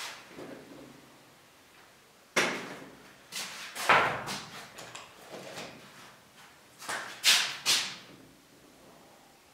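Sharp knocks and clacks of hard objects being handled and set down on a hard surface, a few seconds apart: the loudest about four seconds in, and two close together near the end.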